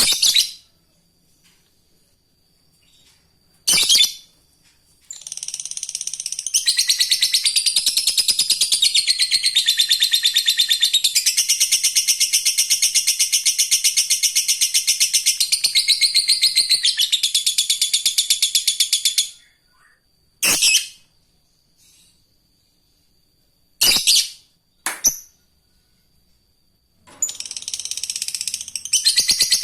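Lovebird ngekek: a long, very rapid, high-pitched chattering trill lasting about fourteen seconds, with short sharp single calls before and after it and another chatter starting near the end.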